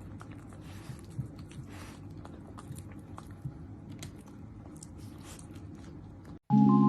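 Chewing: irregular small crunching clicks over a low steady hum. Near the end it cuts off suddenly and marimba music starts.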